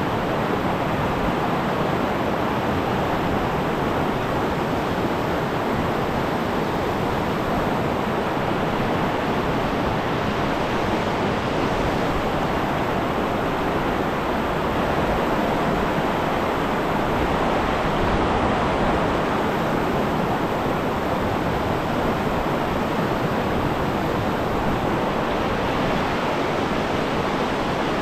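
River rapids rushing: a steady, even wash of white water, swelling slightly about halfway through.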